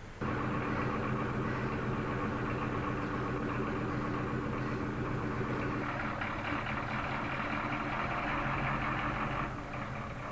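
A motor vehicle's engine idling steadily. It cuts in suddenly just after the start and drops in level near the end.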